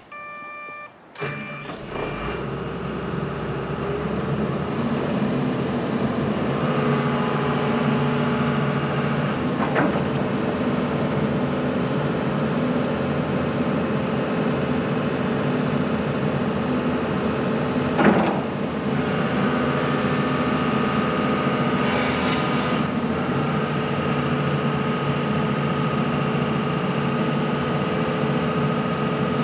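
The mechanical diesel engine of a 2004 Daewoo SL225LC-V excavator starts after a short steady tone about a second in, then runs steadily while a whine from the hydraulics rises and shifts as the boom and grapple lift. One sharp clunk comes about eighteen seconds in.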